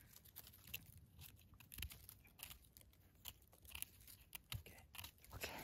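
Faint, scattered crisp clicks and crackles of a small knife cutting and scraping the stem of a freshly picked hedgehog mushroom (pied de mouton).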